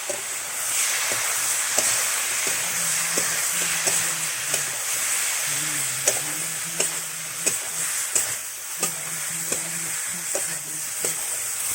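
Mixed vegetables sizzling in a hot kadai while being stirred, with a steady frying hiss and the spatula clicking against the metal pan about every two-thirds of a second.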